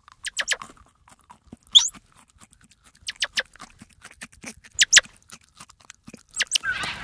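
Grey squirrel chewing and gnawing, a run of irregular sharp crunchy clicks in small clusters.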